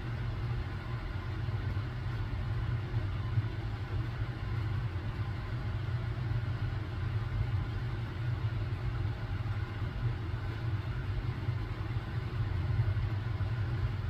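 A steady low mechanical rumble, like a running engine, holding even throughout with no bird calls standing out.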